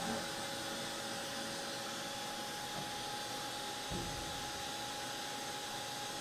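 Steady hum and hiss of a Milltronics CNC vertical mill running an automatic probing cycle, with a faint steady whine over it. A soft low thump comes about four seconds in.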